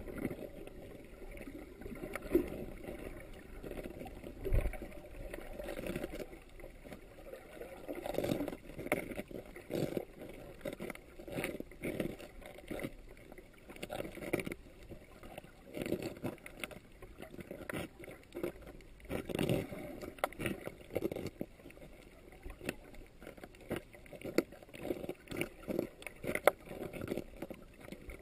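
Muffled underwater sound heard through a GoPro dive housing: water moving around the camera, with many irregular clicks and knocks.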